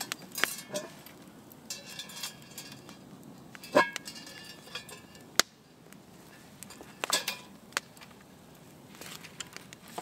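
Steel chain clinking and a cast iron Dutch oven's wire bail handle clanking as the pot is hooked onto a hanging chain over a campfire: a run of sharp metallic knocks and jangles, the loudest a little under four and about five and a half seconds in.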